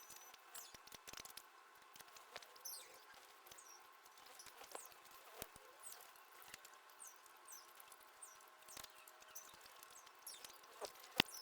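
Small birds at a seed feeder: faint, short, high chirps dotted through, with frequent light taps and clicks, and one sharper click near the end.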